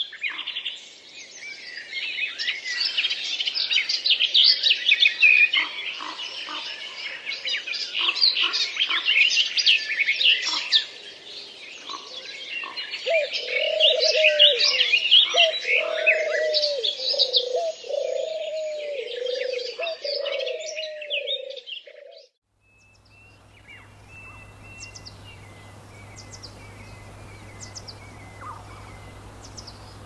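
Dense chorus of many birds chirping and singing, joined a little before halfway by a lower call repeated about once a second. A little past two-thirds in, the chorus cuts off abruptly. What follows is a quieter scene of a few sparse high chirps over a steady low hum.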